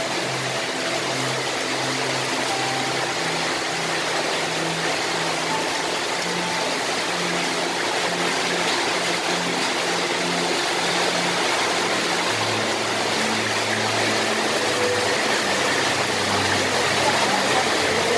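Heavy cyclone rain falling steadily, a dense even hiss, with faint music underneath.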